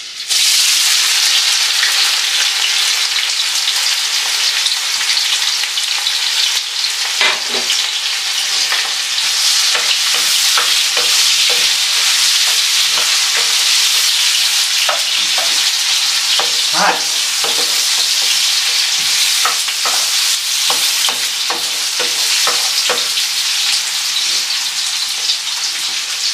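Chopped onions hitting hot oil in a round-bottomed metal pot: a loud, steady sizzle that starts suddenly as they go in. Scattered light knocks and scrapes come from a wooden spatula stirring the onions against the pot.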